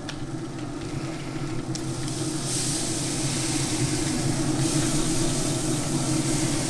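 Steady hum of a Traeger pellet grill's motor and fan, and from about two and a half seconds in, a hiss of apple juice being sprayed from a trigger spray bottle onto the smoking pork butts.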